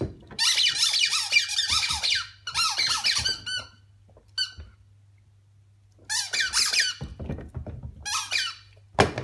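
Dog chewing a squeaky toy, squeezing out rapid runs of high squeaks in bursts of a second or two. There is a quiet gap of about a second and a half near the middle.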